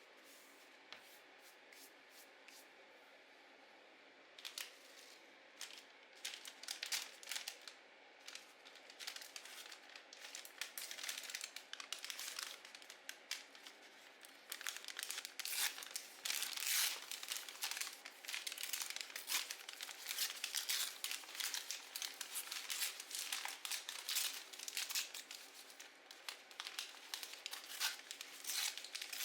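Paper crinkling and being torn, close up. It starts about four seconds in as scattered crackles and becomes a dense, continuous crinkling from about halfway.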